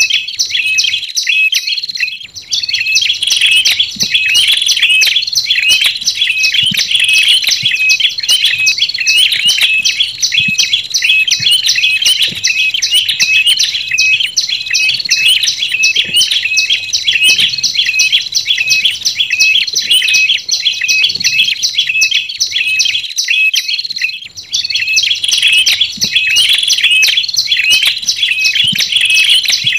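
Prenjak tailorbirds calling, the prenjak lumut combined with the red-headed prenjak kepala merah, from a bird-lure recording. It is a rapid, unbroken run of sharp, high chirps that pauses briefly about two seconds in and again near twenty-three seconds.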